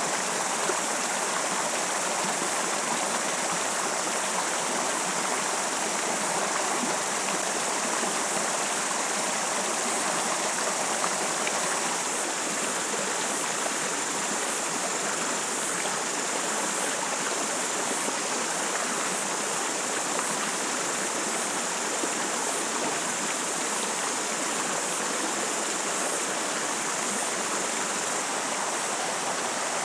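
A rocky river rushing over stones and small rapids: a steady, unbroken rush of flowing water.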